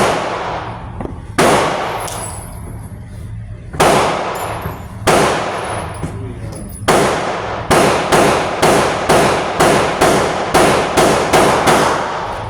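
Glock 43X 9mm pistol being fired, about sixteen shots, each sharp report trailing off in echo. The first few come seconds apart, then a steady string of about two shots a second over the last five seconds.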